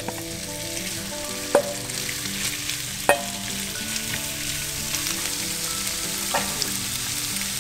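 Chopped raw lobster meat sizzling in butter in a hot frying pan, with three sharp taps of the spatula against the pan as it is stirred.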